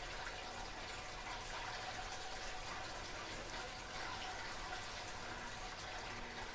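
Faint steady background noise: room tone with a faint, steady hum.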